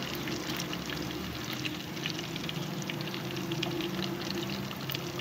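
Whole quail deep-frying in oil in an aluminium pot, a steady sizzle with many small crackles, under a steady low hum.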